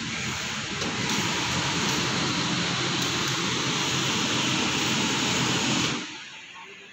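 Steam ironing tables with an electric boiler: a loud, steady hiss with a low hum underneath, dropping away sharply about six seconds in.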